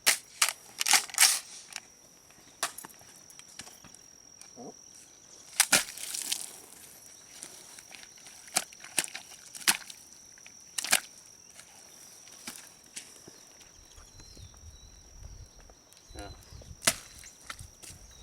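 Palmetto State Armory AR-15, mud-caked, firing single shots at irregular intervals: about a dozen sharp cracks, several in quick pairs early on and then spaced a few seconds apart. The rifle is running despite the mud.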